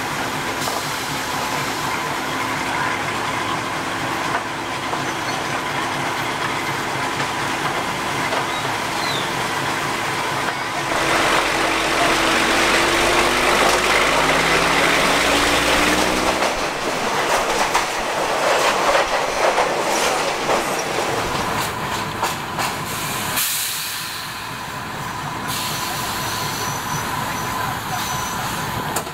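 Diesel railcar running along the track, heard through an open carriage window: a steady rush of wheel and wind noise. About a third of the way in, the engine note grows louder and rises slightly for several seconds. After that comes a stretch of rhythmic clacking, like wheels over rail joints.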